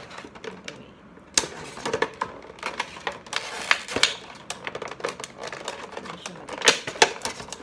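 Hands opening a makeup product's packaging: irregular crinkling, clicking and snapping, with two sharper snaps near the end.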